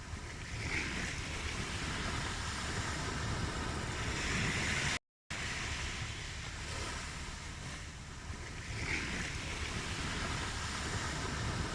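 Ocean waves washing ashore in slow, rising and falling swells, with a brief cut to silence about five seconds in.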